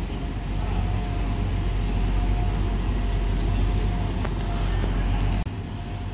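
Class 175 diesel multiple unit running into the platform: a steady low engine rumble under a constant whine, with a few sharp clicks about four seconds in. The sound drops suddenly about five and a half seconds in.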